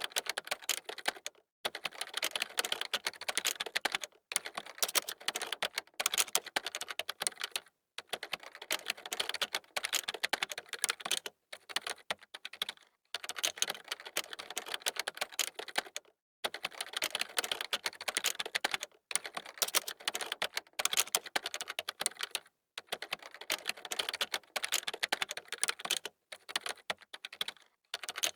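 Fast typing on a computer keyboard: dense runs of key clicks, broken by short pauses every second or two.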